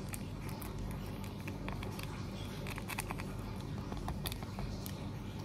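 Instant noodles being handled and mixed with their sauce in a bowl: scattered light clicks and taps of a utensil, irregular, over a steady low hum.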